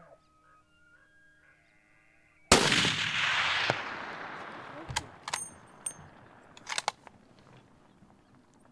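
A single hunting-rifle shot about two and a half seconds in, its report echoing and dying away over a couple of seconds; it is the shot that hits a bull elk. A few faint clicks follow.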